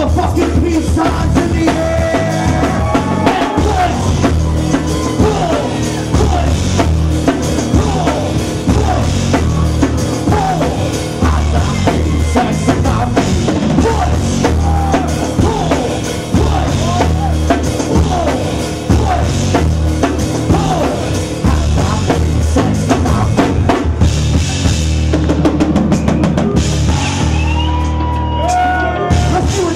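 Loud live rap-rock band music: a drum kit with a heavy bass drum under bass and electric guitar.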